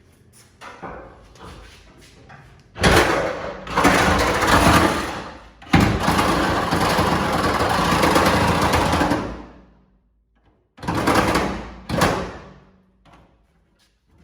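Power cutting tool cutting into the sheet-metal bed of a pickup truck: two long runs of harsh, hissing cutting noise, then two short bursts near the end.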